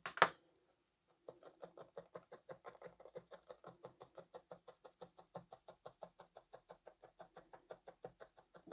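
Multi-needle felting tool stabbing lightly into wool fibre over a foam mat: soft, even ticks about five a second, starting about a second in.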